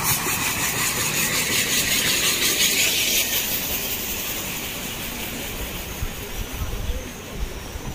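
Water flowing and splashing in a fountain, a steady hiss that is loudest for about the first three seconds and then fades.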